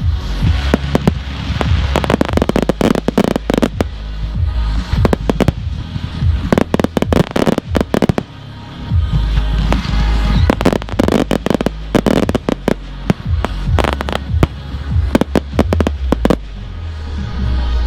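PyroLand consumer fireworks going off in a rapid, continuous barrage of sharp bangs and bursts over deep booms.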